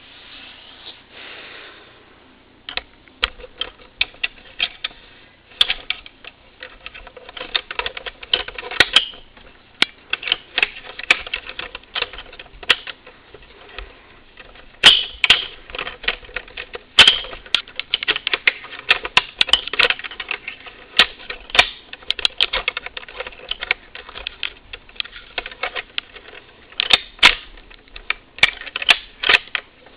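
Rapid, irregular clicking and tapping, several sharp clicks a second, like keys being typed.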